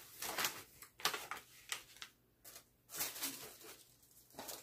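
Packaging rustling and crinkling in several short bursts: a plastic gummy-candy bag being handled and put down, and hands moving through tissue paper in a box.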